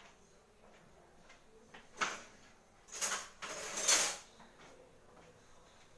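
Kitchen utensils being handled off-camera while a spatula is fetched: a short scraping noise about two seconds in, then a longer one from about three to just past four seconds in.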